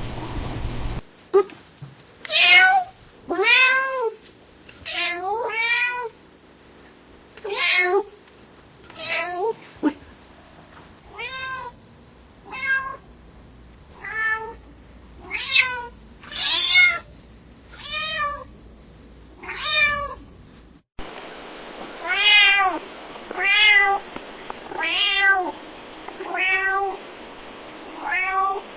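Domestic cat meowing softly and repeatedly, a short call every second or so, each rising then falling in pitch. The background changes at about one second and again about twenty seconds in, where a steady hiss sits under the meows.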